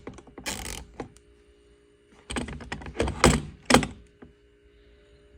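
Handling noise from a split-beam torque wrench and its plastic case: a few short scrapes, then a cluster of sharp clicks and knocks about two to four seconds in.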